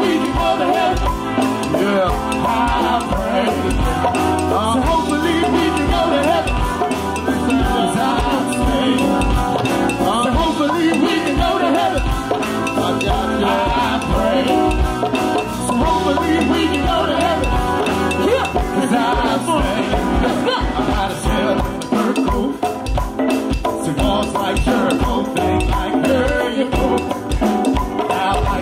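Live band music with a drum kit and percussion keeping a steady beat under pitched instruments.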